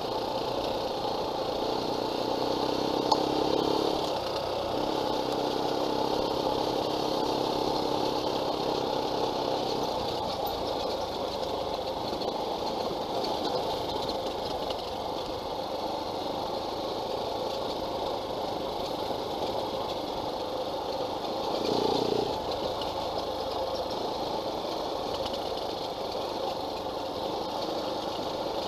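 Off-road dirt bike engine running under way on a rough trail, with a steady engine note that shifts about four seconds in and a brief louder swell about 22 seconds in.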